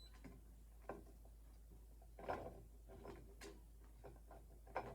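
Faint, scattered clicks and light taps of fire-alarm wiring being handled at the panel's screw terminals, about four in all, over a low steady hum.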